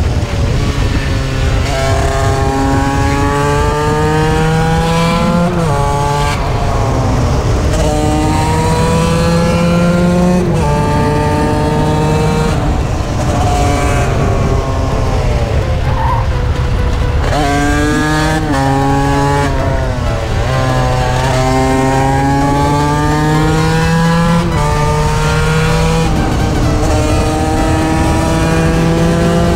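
TM SMR 125 two-stroke supermoto engine at full throttle, its pitch climbing and dropping sharply at each gear change, again and again. A steady wind rumble from riding at speed runs underneath.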